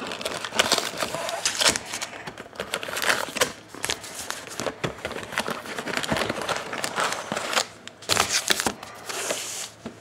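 Foil-wrapped Topps Allen & Ginter's trading card packs crinkling and rustling as they are pulled out of the cardboard hobby box and stacked, in uneven bursts of crackling.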